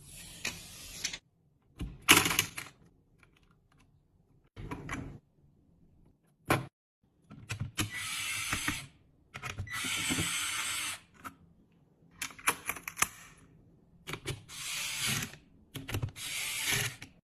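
Mechanical handling sounds of computer parts being fitted together. Scattered clicks and knocks are broken up by about five bursts, a second or so each, of dense scraping or whirring noise, with quiet gaps between.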